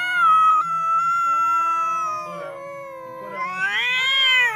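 Two domestic cats yowling at each other in a standoff: long, drawn-out overlapping cries, one high and one lower, with a louder yowl rising and falling near the end.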